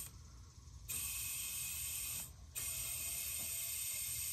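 Compressed air hissing as it is fed through a home-made boost leak tester into a 5.9 Cummins diesel's intercooler and intake tubes, pressurizing the system toward 15 psi. The hiss starts about a second in and stops briefly just after two seconds.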